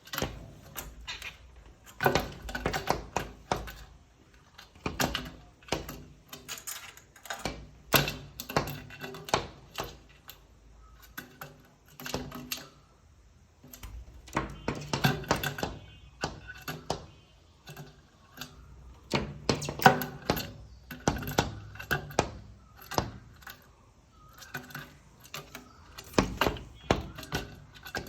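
A bird knocking with its beak on a hard surface: rapid runs of sharp taps in irregular clusters, with short pauses between them.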